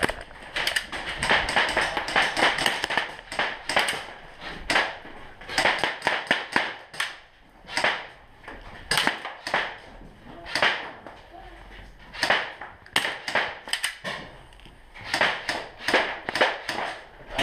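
Airsoft guns firing in an indoor arena: an irregular run of sharp snaps and clicks, with BBs striking walls and props. The shots come in clusters, thickest near the start, around the middle and near the end.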